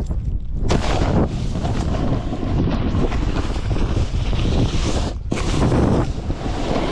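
Wind buffeting a point-of-view camera's microphone as a snowboard slides fast over packed snow, a dense steady rush that thins out briefly near the start and again about five seconds in.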